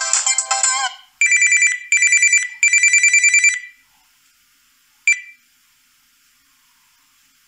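Samsung Galaxy A41 preset ringtones through the phone's speaker. A melodic ringtone ends about a second in, followed by an old-style telephone-bell ring in three rapid, pulsing bursts. A single short chime sounds about five seconds in.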